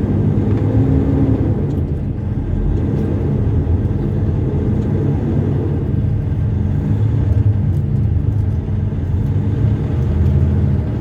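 Semi truck's diesel engine running steadily while the truck is under way, heard from inside the cab.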